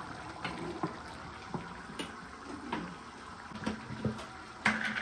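A pot of daal cooking on the stove: a steady hiss with scattered small pops and clicks, and a louder knock near the end.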